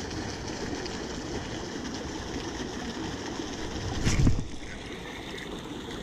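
Steady sound of creek water flowing over a weir, with a brief thump about four seconds in.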